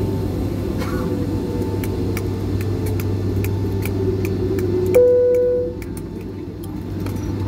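Boeing 757-200 cabin at the gate: a steady engine and air-system hum with scattered light clicks, then about five seconds in a single cabin chime rings and fades, after which the hum drops noticeably.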